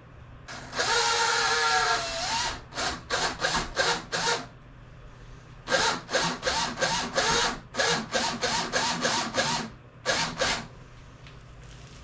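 Power drill with a small bit, run once for about two seconds and then pulsed in quick short trigger bursts, each spinning up and cutting off, while spoke nipples are run onto new spokes around a motorcycle wheel.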